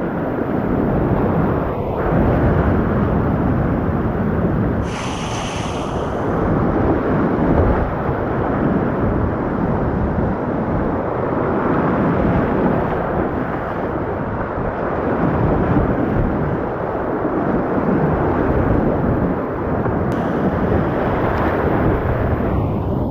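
Loud, steady rush of creek whitewater rapids, a churning noise with no let-up.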